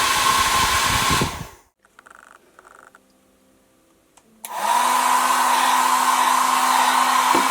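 Cordless hair dryer blowing with a steady whine, switched off about a second in and switched back on about four and a half seconds in, its motor spinning up before running steadily again.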